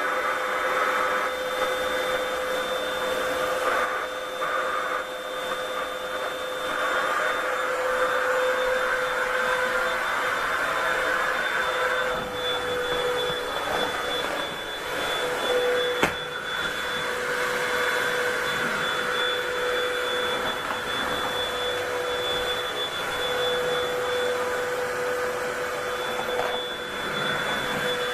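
Vacuum cleaner running steadily: a rushing hiss of air with a steady whine held over it. A single sharp knock about halfway through.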